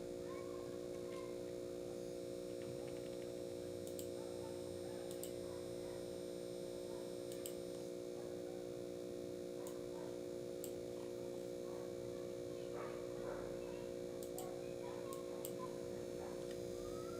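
Steady low electrical hum, with a handful of faint, sharp computer-mouse clicks spaced a second or more apart.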